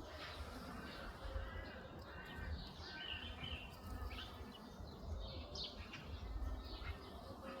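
Small birds chirping and trilling in short, repeated calls, over a steady low rumble.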